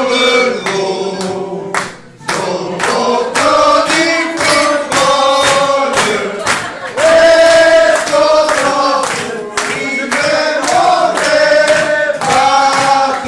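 A man singing a song solo into a handheld microphone, amplified, with long held notes and short breaks between lines.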